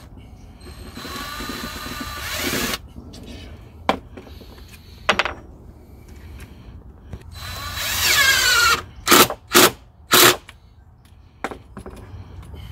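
Cordless drill driving screws through steel shelf brackets into wooden legs: two longer runs of the motor, the second dropping in pitch near its end, then three quick bursts of the trigger. A few sharp clicks fall between the runs.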